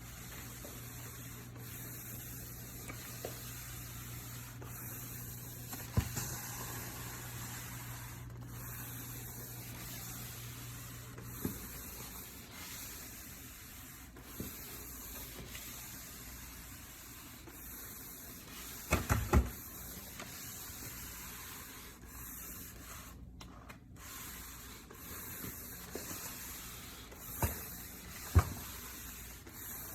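Shark VacMop Pro cordless vacuum mop being pushed over a hard floor: a steady rubbing, scrubbing noise from the pad, with a low motor hum that stops about a third of the way in. A few sharp knocks from the mop's head or handle, with a quick cluster about two-thirds in.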